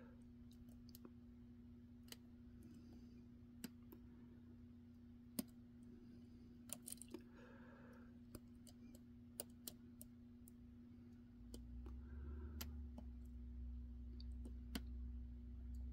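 Sparse, faint metallic clicks of a lock pick and tension tool working the pins inside a pin-in-pin padlock, one click every second or two, over a faint steady hum.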